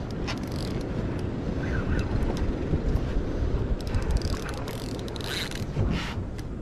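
Spinning reel being cranked against a heavy fish, a run of small clicks and whirring, over a steady low rumble of wind on the microphone and the boat.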